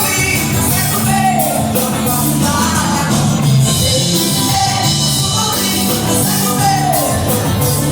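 Music with a voice singing, at a steady, fairly loud level; the melody has short downward slides over held low notes.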